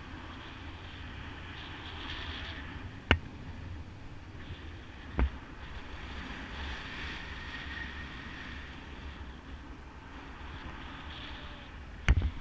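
Airflow rushing over the microphone of a camera carried in paraglider flight: a steady buffeting wind rush. Three sharp knocks stand out, about three seconds in, about five seconds in, and a louder double one near the end.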